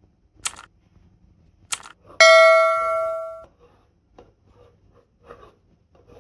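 Two mouse clicks, then a bell-notification ding that rings out for about a second: the sound effect of a subscribe-button animation. After it come a few faint rasping strokes of a carrot being rubbed across a plastic hand grater.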